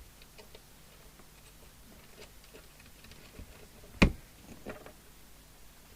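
Faint clicks and taps of small equipment being handled on a workbench, with one sharp knock about four seconds in.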